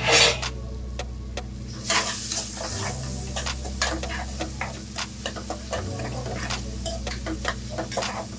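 Chopped onions frying in butter over a high flame, sizzling, with a spatula stirring and clicking against the pan. A brief loud hiss comes right at the start, and the sizzle grows louder about two seconds in.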